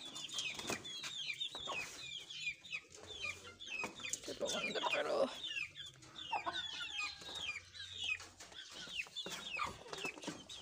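Young chickens peeping over and over: short, high calls that fall in pitch, several a second, from a small flock.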